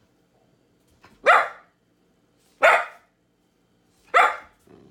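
Young puppy barking three times, short sharp barks about a second and a half apart, barking for a treat that is being held back until it obeys.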